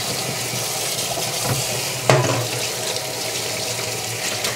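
Water running steadily from a kitchen tap into the sink, with one sharp clink of a dish or utensil about two seconds in.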